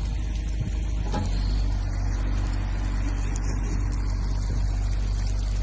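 A dredger's engine running steadily at a constant speed, with a low, even drone and no change in pitch.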